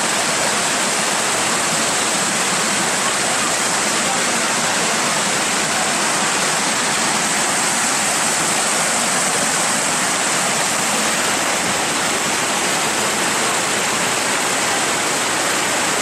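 Water rushing over shallow limestone cascades of a waterfall: a loud, steady, unbroken rush.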